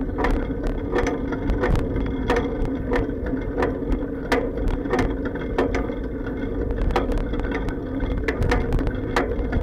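Bicycle ride heard through an action camera's sealed waterproof case: irregular sharp clacks and bumps from the bike, several a second, over a steady muffled low rumble of the tyres rolling on pavement.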